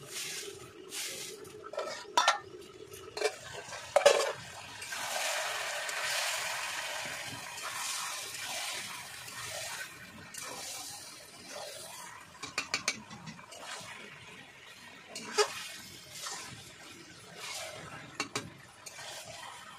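Metal clanks of a lid on a kadai, then chicken pieces sizzling in the hot pan for several seconds, followed by a long metal spatula stirring and scraping them, knocking against the pan's side now and then.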